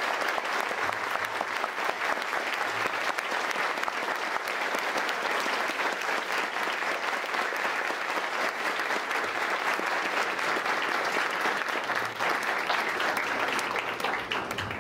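A large audience applauding steadily, a sustained, even clatter of many hands clapping that cuts off suddenly at the end.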